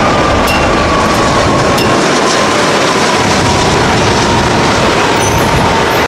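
Airbus A330-300 jet airliner landing: a loud, steady roar of jet engines and rushing air, with a high whine that slowly falls in pitch. It cuts off suddenly at the end.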